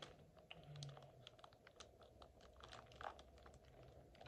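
Faint, scattered crinkles and clicks of a plastic bag and packaging being handled as a toy is pulled out of it.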